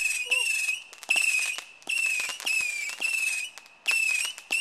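Whistling firework going off: about six short, shrill whistles in quick succession, each sliding slightly down in pitch, with sharp cracks between them.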